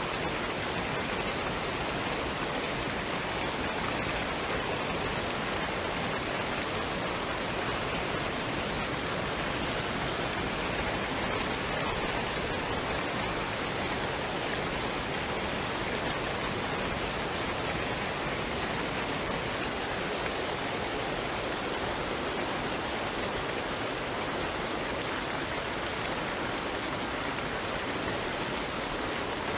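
Waterfall and stream water running, a steady, even rushing noise with no breaks.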